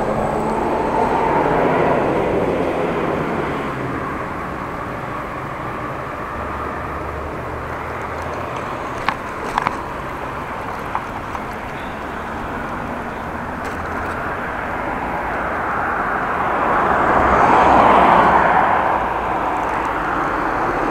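Riding noise from a bicycle-mounted camera: a steady rush of wind and tyres rolling over a brick-paved bike lane, swelling louder near the end, with a few sharp clicks about halfway.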